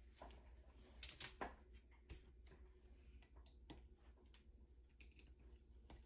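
Faint scattered clicks and taps of small hand tools at a workbench: a soldering iron set down and flush cutters handled and worked at a circuit board, the sharpest two clicks a little after a second in. A low steady hum runs underneath.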